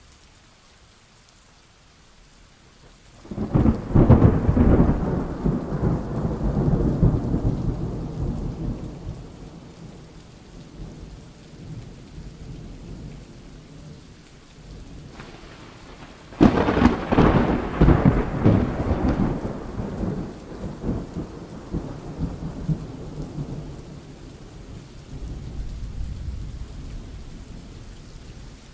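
Thunderstorm: steady rain with two thunderclaps, the first rising about three seconds in and the second breaking sharply about halfway, each rumbling away over several seconds.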